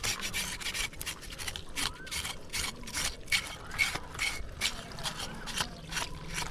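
A blade scraping the singed skin of a pig's head clean, in quick repeated strokes, several a second.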